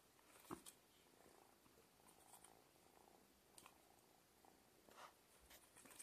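Tabby kitten purring faintly while it is petted, with a few soft clicks of handling.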